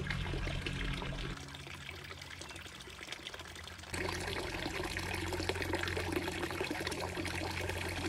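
Water from a bamboo fountain spout trickling and splashing steadily into a small pond. It is quieter at first and louder from about four seconds in.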